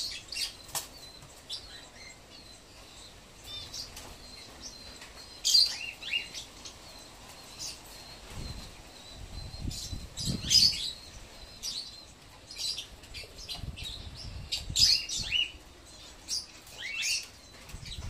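A flock of African lovebirds making short, high-pitched chirping calls every second or few, several of them dropping in pitch, with bursts of wing flapping in between.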